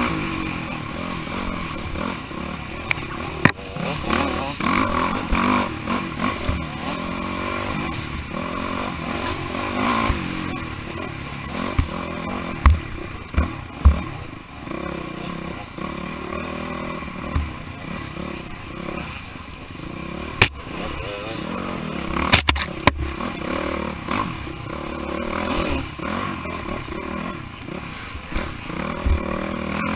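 Dirt bike engine revving up and down continually as it is ridden hard over rough trail, heard close up from on the bike. Several sharp knocks cut through it, the loudest about 13 s, 14 s and 20 s in.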